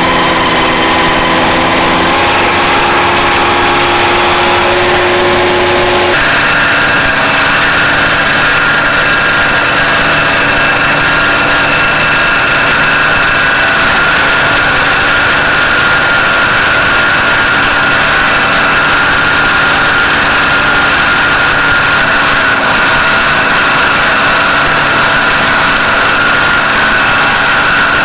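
Vermeer RTX750 ride-on tractor's engine running steadily under load while its plow cuts line into the ground, with a steady high whine joining about six seconds in.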